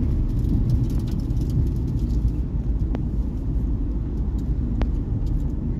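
Steady low rumble of a car being driven, heard from inside the cabin, with two faint clicks about three and five seconds in.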